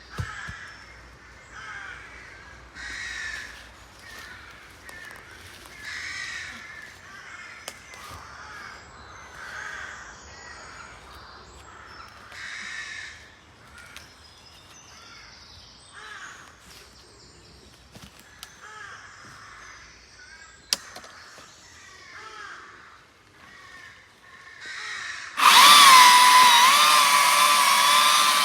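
Birds calling on and off. About 25 seconds in, an electric chainsaw starts up loud, a high whine that wavers slightly in pitch.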